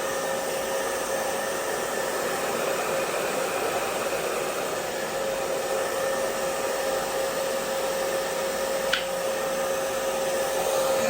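Handheld hair dryer blowing steadily, its motor holding one even pitch under the rush of air, used to dry and set the glue spray on a lace frontal wig. A single brief click about nine seconds in.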